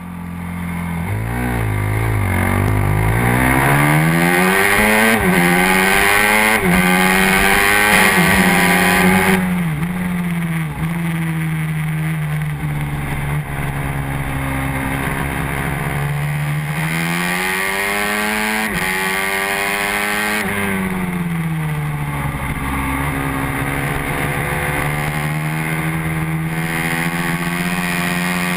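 Honda NSF150R racing motorcycle's engine, recorded onboard, pulling away and accelerating hard. The revs climb and drop sharply at each upshift through the gears, hold high along a straight, fall away for a corner and climb again. Wind rushes over the microphone throughout.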